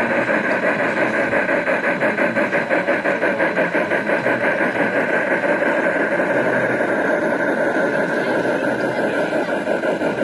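Steady, rhythmic, engine-like chugging at about four beats a second, running evenly throughout.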